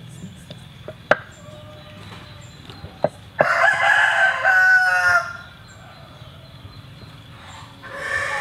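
A rooster crows once, loudly, for nearly two seconds about three and a half seconds in, and another call starts near the end. A few sharp knocks come before it, the loudest about a second in.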